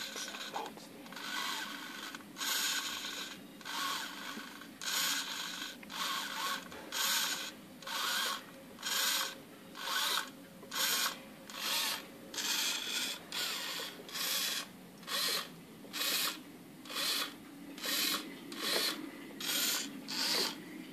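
Small hobby RC servo whirring through its gears as it swings the arm back and forth, each sweep a short burst. The bursts come unevenly at first, then settle into an even rhythm of about one and a half a second.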